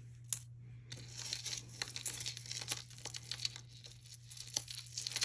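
Crinkling and rustling with many small sharp clicks as beaded necklaces are handled, set down and picked up.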